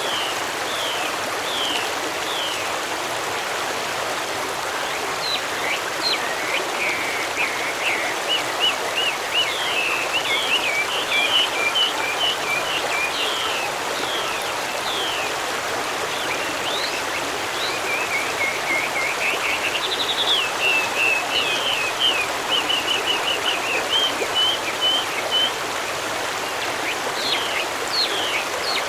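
Steady rushing of a forest stream, with small songbirds chirping and trilling over it in quick repeated series.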